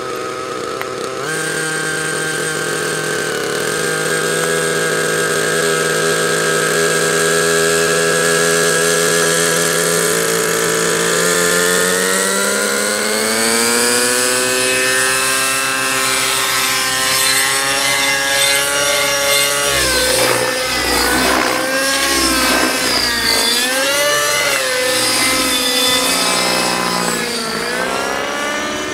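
Align T-Rex 600 Nitro radio-controlled helicopter's glow engine, a new engine being broken in, running at a steady idle, then rising in pitch as the rotor spools up for takeoff. In flight, from about two-thirds of the way in, the engine note dips and swells repeatedly as the load changes.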